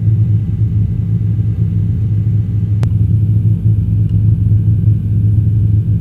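Helicopter cabin noise as heard over the intercom: a steady low drone, with a single sharp click about three seconds in.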